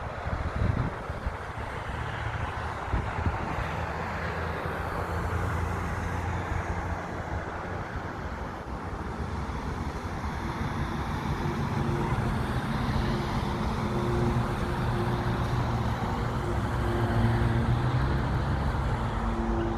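Steady engine rumble with a hiss on top, slowly growing louder, with low steady hums joining about halfway through.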